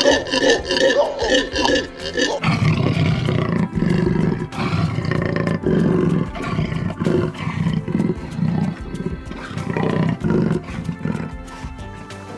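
A big cat growling and roaring in a run of low, rough calls, about one a second, starting about two seconds in. Before that, a different animal gives rapid repeated calls.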